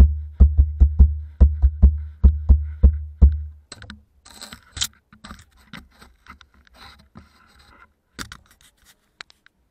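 A wooden slit drum is struck in a quick run of about a dozen strokes, each a deep, booming thud heard from inside the hollow drum. The strokes stop a little over three seconds in. Soft scraping and rustling follow, with a few light clicks near the end.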